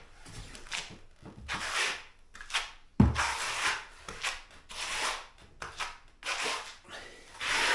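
Plastering trowel scraping and spreading adhesive across a wall in repeated strokes, with one sharp knock about three seconds in.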